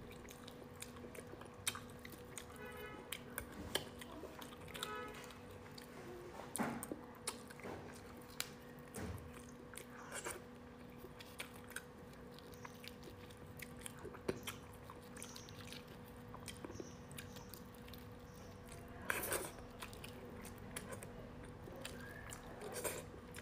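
Metal spoon clicking and scraping against the hard, knobbly skin of a cooked starfish as the soft insides are dug out of its arms, with soft chewing in between. Small irregular clicks run throughout, with a louder cluster of scrapes near the end, over a steady low hum.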